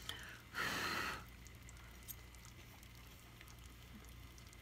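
A single short puff of breath about half a second in, then a quiet room with a steady low hum and a few faint clicks.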